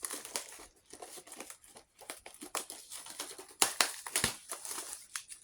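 Plastic wrapping being pulled off and crumpled by hand, crinkling irregularly, with a louder crackle a little under four seconds in.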